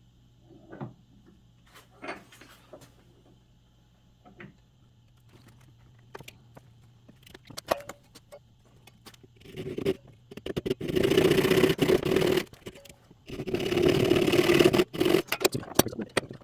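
Japanese pull saw cutting into a piece of wood: two runs of rapid sawing strokes, the first starting about ten seconds in and the second shortly after, following several seconds of light clicks and taps from handling the work.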